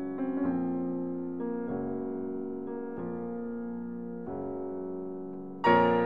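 Background music: sustained piano chords that change every second or so, with a louder chord near the end.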